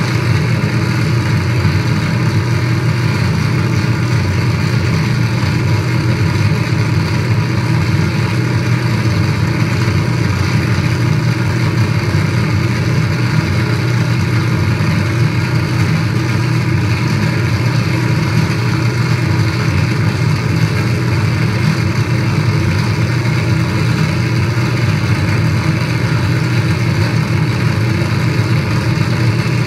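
A steady, unchanging wall of electronic noise from a tabletop synthesizer run through effects pedals, played live: a heavy low hum with hiss and static spread over it.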